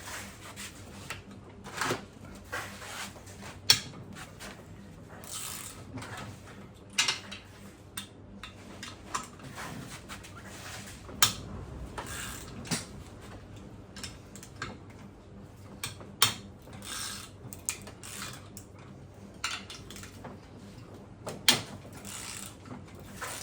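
Metal hand tools clinking and knocking at irregular intervals as a socket and wrench are fitted to the cylinder head studs and the studs are cracked loose, with a few sharper metallic knocks among quieter clicks and scrapes.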